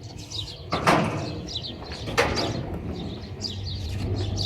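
Small birds chirping over and over with quick falling calls, broken by two sharp knocks, about one second and two seconds in, which are the loudest sounds.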